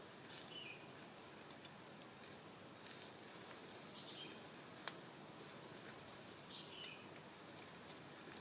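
Red gum wood fire crackling under chicken on a grill, with scattered sharp pops, one louder about five seconds in, over a faint steady hiss. A bird chirps briefly three times in the background.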